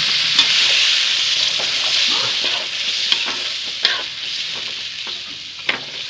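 Chana and potato tomato gravy sizzling in a hot kadhai as freshly added water hits it. The sizzle is loud at first and dies down steadily as the pan cools. A metal spoon stirs and scrapes against the pan, giving several sharp clicks in the second half.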